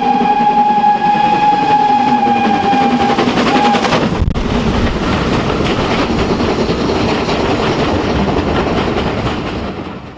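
Steam locomotive whistle blowing one long, steady, slightly falling note for nearly four seconds over the noise of the running train. After a brief break, the train rumbles past, then fades out at the end.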